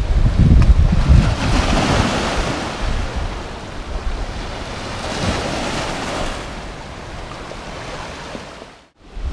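Ocean surf washing over a rocky shoreline, rising and falling in swells, with wind rumbling on the microphone, heaviest in the first second and a half.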